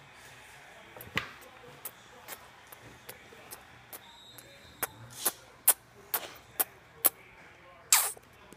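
A child's kisses smacking against a phone's microphone: a string of short, sharp lip smacks, about two a second, louder in the second half.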